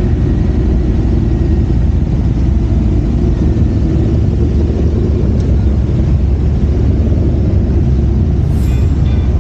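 Motorcycle engine running steadily under way with wind and road noise, heard from on the bike: a loud, even low rumble. A group of other motorcycles rides alongside.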